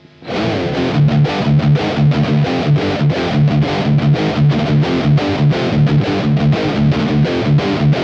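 Electric guitar played through a high-gain, Friedman-style amp model pedal, distorted tone. The riff is fast, evenly repeated strokes with a heavy pulsing low end, starting a moment after a brief silence.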